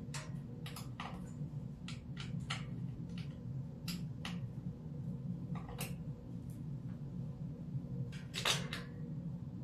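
Scattered small clicks and taps of metal screws and an Allen wrench being handled while a wooden dresser is put together, a few of them close together near the end, over a steady low hum.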